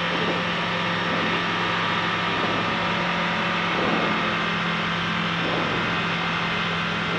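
Skyranger Swift 2 microlight's engine and propeller running steadily at take-off power, holding one even pitch, as the aircraft leaves the grass runway and climbs away in a touch-and-go.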